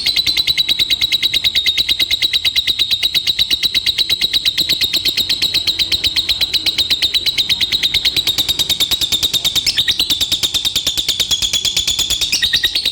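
Lovebird's long ngekek: an unbroken chattering trill of rapid, even, high-pitched notes, more than ten a second, kept up without a pause.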